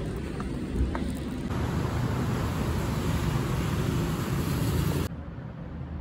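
Steady low rumble of background noise, heaviest in the bass, with a faint click near the start. About five seconds in it drops suddenly to quieter room noise.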